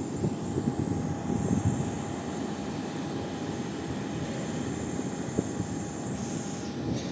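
Boeing 737 MAX jet engines (CFM LEAP-1B turbofans) at takeoff power, heard from a distance as a steady low crackling rumble with a thin steady tone above it.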